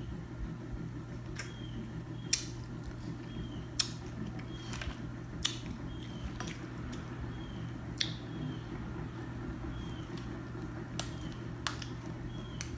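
Snow crab leg shells being cracked and snapped by hand and cut with kitchen scissors: about nine sharp, irregular cracks over a steady low hum.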